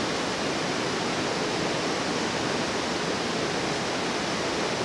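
Electric potter's wheel running steadily: an even, unchanging whooshing hiss.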